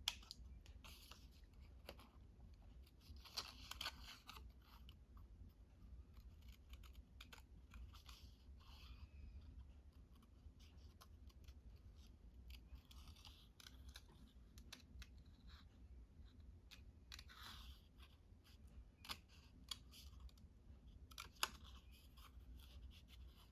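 Faint snipping of scissors cutting paper, a few soft cuts every several seconds with small clicks and paper handling in between, over a low steady hum.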